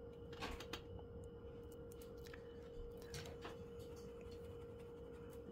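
A few faint, short scratches of an oil-paint brush stroking the canvas, over a steady faint tone.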